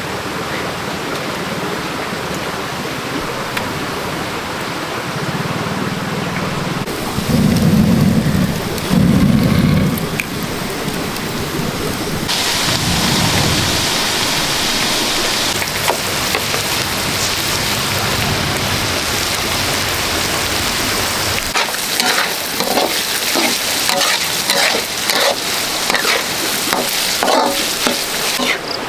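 Heavy rain falling steadily, with two loud low thunder rumbles a little after a quarter of the way in. The rain sound changes abruptly a few times, and many sharp drip-like ticks come through in the last quarter.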